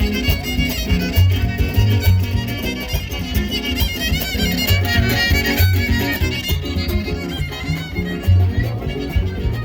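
Son huasteco trio playing an instrumental huapango passage: a violin leading over strummed jarana and huapanguera, whose bass notes step along steadily.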